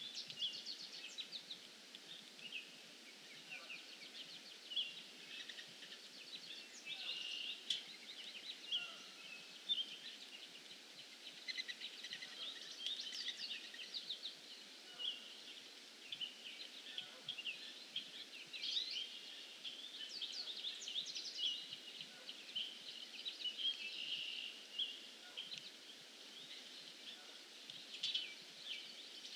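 Several songbirds singing and calling, many short chirps and trills overlapping throughout, over a faint steady background hiss.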